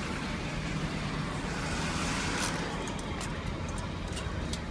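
Road traffic noise: a steady low rumble, with a vehicle passing about two seconds in. A scatter of light clicks follows in the second half.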